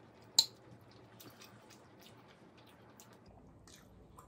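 Close-miked eating sounds: faint chewing and small wet mouth clicks and ticks while metal chopsticks work noodles and pork belly in a ceramic bowl, with one sharp click about half a second in.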